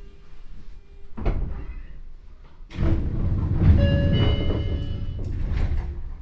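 Seibu 9000 series electric train stopping at a station. The whine of its Hitachi IGBT inverter dies away, a short burst of air comes about a second in, and the sliding passenger doors open with a longer, louder rush about three seconds in.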